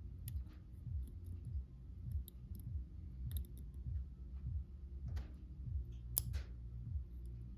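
Scattered small clicks and taps of tools on the pins and springs of a disassembled Master Lock No. 160 padlock as a stubborn pin stack is worked out, the sharpest click about six seconds in. Underneath runs a steady muffled bass beat of music from upstairs.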